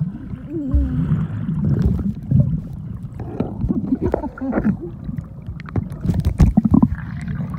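Muffled underwater churning and bubbling as a snorkeler swims close by, with several sharp knocks near the end.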